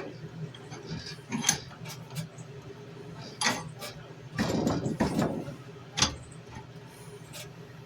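Hand sanding a steel tanto blade: a short scratchy run of sandpaper strokes about halfway through, with a few sharp knocks and clicks from the blade and sanding block being handled.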